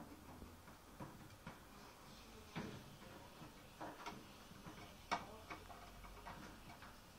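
Faint, irregular clicks and light rattles of Canadian Sphynx kittens' claws catching on a wire-mesh playpen as they climb it.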